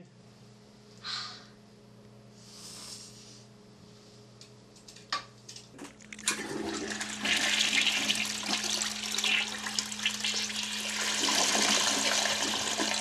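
A few faint scrapes and clicks, then about six seconds in a toilet flushes, with a loud rush of water swirling through the bowl.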